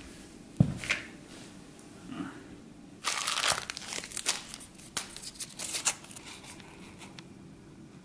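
A single thump about half a second in, then from about three seconds in, several seconds of paper crinkling and rustling as a crumpled scrap of squared notepaper is handled and unfolded.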